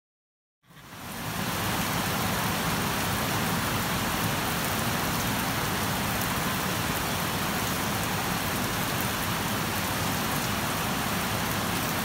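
Steady rain falling on the ground and on shallow water running over it, fading in about a second in after silence.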